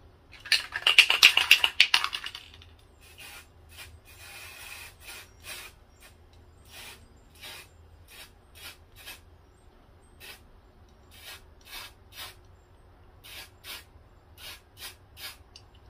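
Aerosol spray-paint can shaken hard for about two seconds, then a series of short spray hisses, one longer one about four seconds in.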